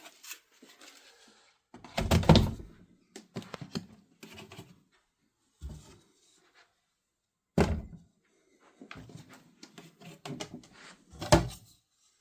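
Plastic filament spools and printer parts being handled while loading a Bambu Lab P1S 3D printer: a string of knocks and thuds, the loudest about two seconds in, near the middle and near the end, with lighter clicks and rustling between.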